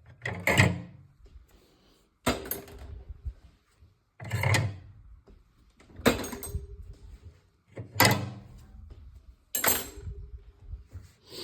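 A series of sharp knocks, about one every two seconds, each ringing out briefly before the next.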